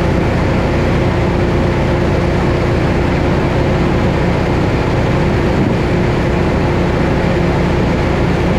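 13-inch grain auger and conveyor running steadily while moving corn out of a full bin: a loud, even mechanical din with a constant hum.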